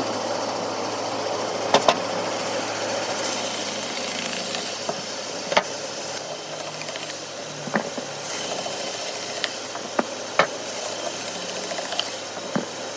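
A woodworking machine running steadily with a hissing hum, with sharp knocks at irregular moments, the loudest a pair about two seconds in.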